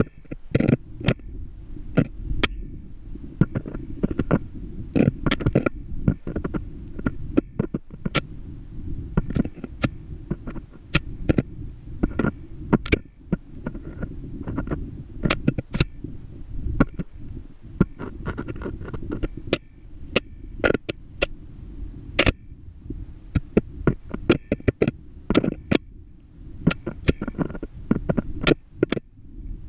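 Muffled low rumble with irregular sharp knocks and clicks, several a second: a GoPro camera rig scraping and bumping against the rock wall of a borehole as it is lowered down the shaft.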